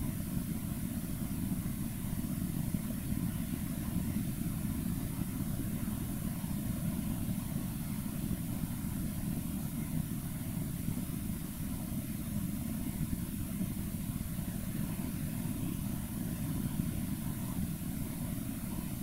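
Steady low rumble of room background noise, unchanging throughout, with no other distinct sounds.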